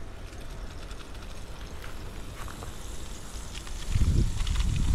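Wind buffeting the microphone outdoors, a low rumble that grows louder about four seconds in, with a few faint ticks.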